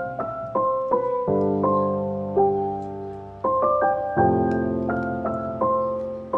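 Background piano music: a slow solo piano piece, notes and chords struck and left to ring.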